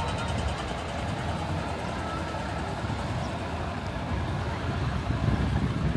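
City street ambience: a steady low rumble, like road traffic, under a general outdoor noise haze.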